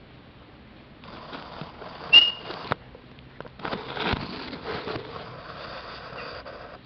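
A single short, high whistled note about two seconds in, over intermittent rustling noise.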